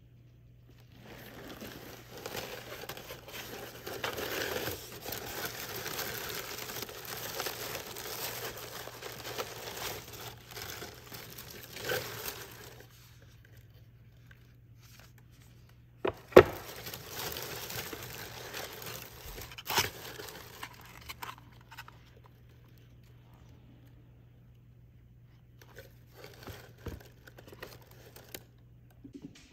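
Cardboard shipping box being opened and honeycomb kraft-paper packing crinkled and rustled by hand, in two long spells of rustling with a couple of sharp knocks in the second.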